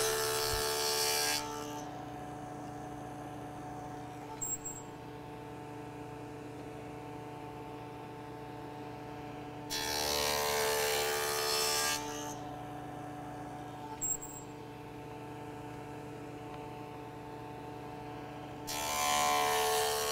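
Table saw with a dado blade running steadily, growing louder and rougher for about two seconds each time it cuts a dado across a walnut board. One cut ends about a second in, another comes about ten seconds in, and a third begins near the end. A short knock comes twice between cuts as the board is moved along.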